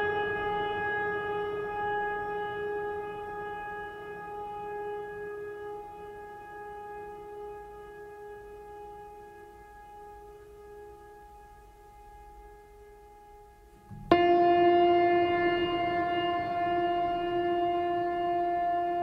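Meditation music of long ringing struck tones, like singing-bowl strikes. The first slowly fades away, and about fourteen seconds in a second, lower tone is struck and rings on.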